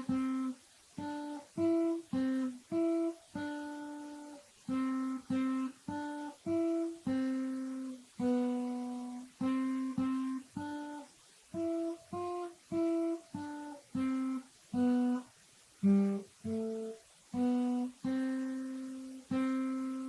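Guitar picking a slow melody one note at a time, each plucked note ringing briefly and fading before the next.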